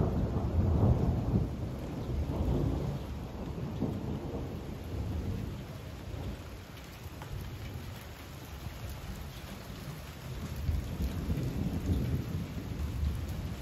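Thunder rumbling over steady heavy rain. The rumble is strongest at the start, dies away in the middle and rolls in again near the end.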